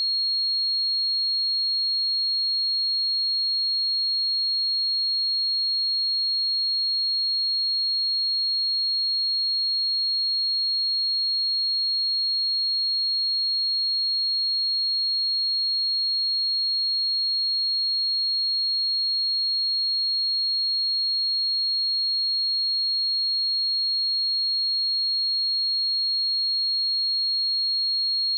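Pure 4275 Hz sine-wave test tone, a single high-pitched steady tone held at constant level.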